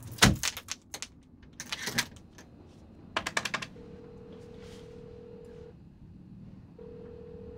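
A door latch and chain lock clicking and rattling in the first two seconds, then a few quick telephone keypad presses and a telephone ringback tone: a steady ring tone sounding twice, about two seconds each with a short gap, as the call rings through.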